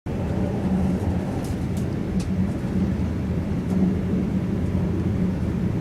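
Steady low rumble and engine drone inside a moving passenger train carriage, with a few faint light ticks of rattle in the first couple of seconds.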